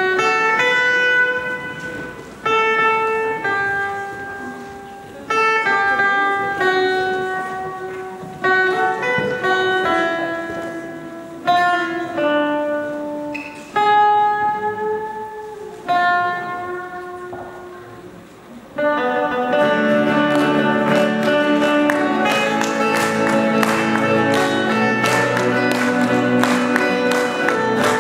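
Acoustic guitar played slowly: single plucked notes and chords, each left to ring and fade. About nineteen seconds in, a second acoustic guitar joins and the two play a fuller, steady accompaniment together.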